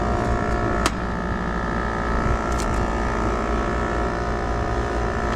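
Air-conditioning condenser unit running with a steady hum from its compressor and fan, already cooling the suction line. A sharp click sounds about a second in.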